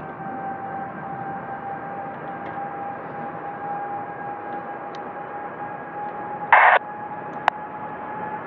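Open air traffic control radio channel with nobody talking: a steady hiss with a steady whining tone through it. A brief loud burst of static comes about six and a half seconds in, and a single sharp click follows about a second later.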